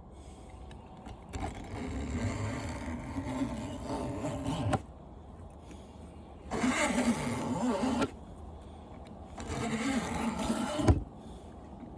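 Box cutter razor blade dragged through the thin aluminum fins of an air conditioner's condenser coil in three strokes, scraping and crunching as the fins are cut and broken loose, the last stroke ending in a sharp snap.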